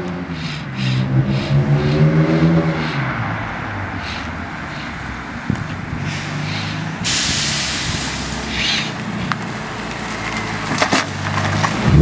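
BMW M3's 3.2-litre inline-six through a straight-piped Magnaflow exhaust, the car accelerating: the engine note climbs for about three seconds, then drops away and runs lower as the car drives on. It grows louder again near the end as the car comes close.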